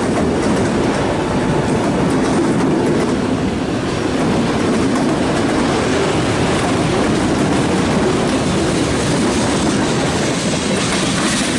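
Freight train's autorack and tank cars rolling by on jointed track, a steady heavy rumble of steel wheels on the rails. The last car passes in the second half, and the rumble carries on as the train rolls away.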